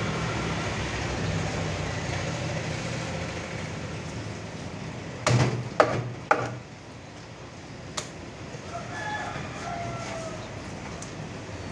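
Large knife chopping through shark meat onto a wooden cutting board: three sharp knocks close together about five seconds in and a single one about two seconds later, over a steady low hum.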